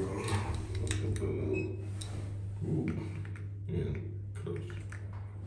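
A few light clicks from a lift's push buttons being pressed and a key fob with keys being handled at the panel, over a steady low hum.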